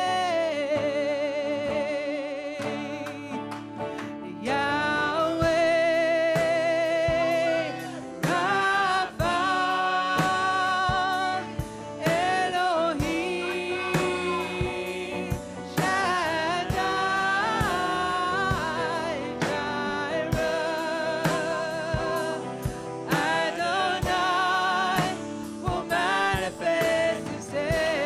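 Live church worship band playing a gospel worship song: a lead singer holding long notes with vibrato over drum kit and guitar.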